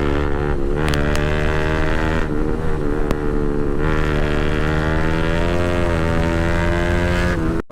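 Bajaj Pulsar RS200's single-cylinder engine running steadily at idle through an aftermarket Akrapovic full titanium exhaust, its pitch rising slightly a few times. The sound cuts off suddenly near the end.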